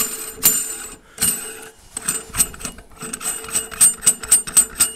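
Chrome-plated metal shower valve parts clinking and scraping as they are fitted and turned onto the valve body by hand, with a quick run of clicks, about seven or eight a second, near the end.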